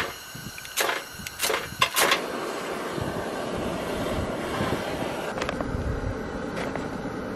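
A long-neck lighter clicks four times over about two seconds at a two-burner propane camp stove. The burner then catches and burns with a steady hiss.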